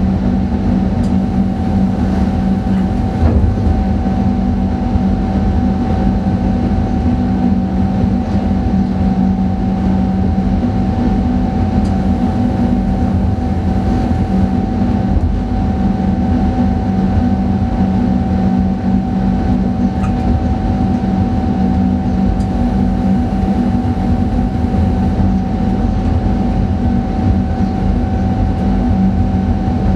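Electric train heard from inside the driver's cab while running steadily along the track: a constant rumble with a steady hum and whine over it, and a few faint clicks.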